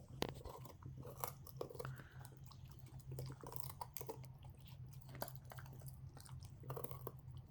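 Border Collie chewing and crunching a raw carrot: irregular crisp crunches and bites throughout, over a faint steady low hum.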